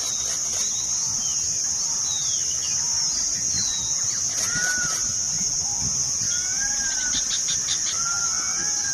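Indian paradise flycatchers calling in short arched chirps, with a quick rattle of ticks late on, over a steady high-pitched insect drone that is the loudest sound throughout.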